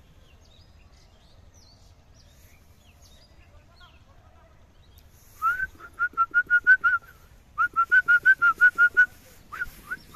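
A person whistling quick runs of short rising notes, about five or six a second, in two bursts from about halfway in and a few more near the end, calling the puppy over. Faint bird chirps are heard before the whistling starts.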